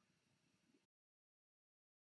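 Near silence: faint room tone that cuts off to dead silence a little under a second in.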